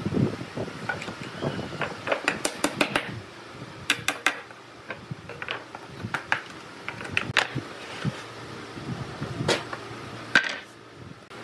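Hardwood boards knocking and clattering on a wooden workbench, with sharp taps of a claw hammer on the wood. There is a quick run of taps about two to three seconds in, then scattered single knocks, the loudest near the end.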